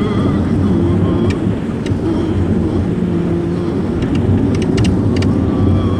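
Cabin noise inside a moving shuttle bus: a steady engine and road drone, with a few sharp clicks, several of them close together between about four and five seconds in.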